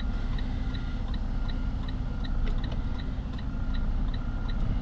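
Semi-truck's diesel engine idling steadily as it backs slowly under a trailer, with a quick, even ticking of short electronic pips, about three a second.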